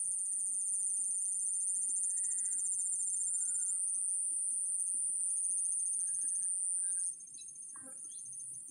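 Steady high-pitched insect drone with a faster pulsing trill just beneath it, dropping away sharply about seven seconds in. Faint short chirps come through it, and there is a single click near the end.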